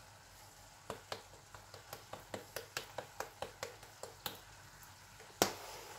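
A small jar of chives shaken over the pan, making a run of light clicks about five a second, followed by one louder knock near the end.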